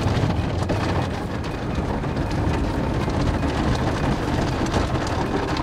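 Automatic car wash heard from inside the car's cabin: water and soapy foam spraying and streaming over the windshield, windows and roof, a steady rushing like heavy rain on the car body.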